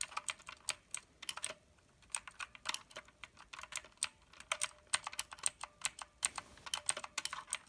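Typing on a Redragon K552 mechanical keyboard: a fast, irregular run of clicky keystrokes, pausing briefly about two seconds in before carrying on.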